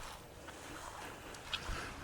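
Faint outdoor ambience: a soft, steady hiss with a couple of light knocks near the end.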